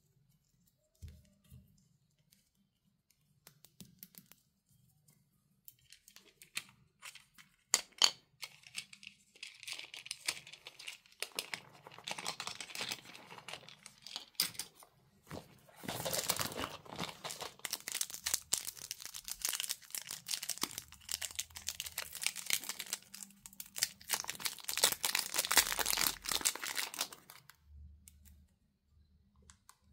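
Plastic packaging crinkling and tearing as it is handled and opened by hand, after a few sharp clicks at the start; the crinkling comes in long spells and is loudest in the second half.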